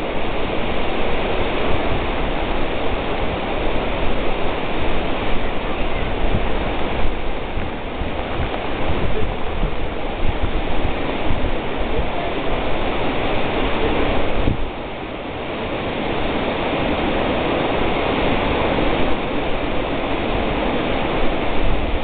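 Ocean surf breaking on a beach, a steady rushing wash of noise, with wind buffeting the microphone in gusts.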